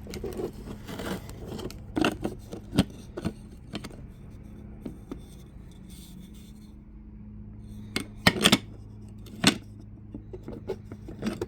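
Abrasive discs being handled: scattered sharp clacks and scraping as discs are picked up and knock together, loudest in a cluster near the end, over a steady low hum.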